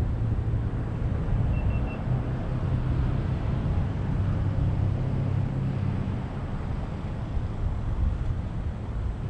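Street traffic: a vehicle driving past gives a low rumble over steady road noise, easing off after about six seconds. Three faint short high beeps come about two seconds in.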